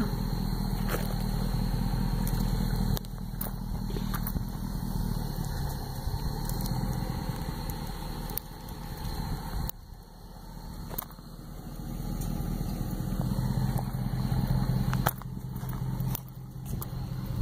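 Ram 4x4 pickup truck's engine running with the truck stuck in deep mud, its sound swelling and falling away several times as it is revved.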